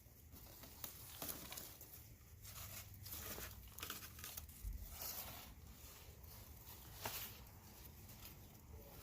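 Garden plant foliage rustling and crinkling in short irregular bursts as the leaves and stalks are brushed or handled.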